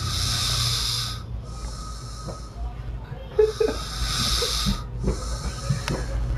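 A sleeping woman snoring, each breath a hissing rasp, four breaths in a slow regular rhythm over a low steady hum.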